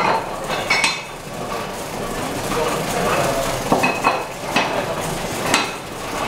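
Sharp metallic clanks and clinks at uneven intervals from the iron lever-and-screw gear of a traditional vertical wine press being worked by hand, with voices murmuring behind.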